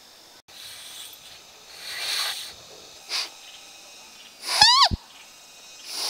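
A homemade twig-bark reed mouthpiece being blown. A few airy puffs of breath come first. About four and a half seconds in it sounds: a short, loud reedy squeal that drops in pitch and cuts off sharply, the sign that the reed works.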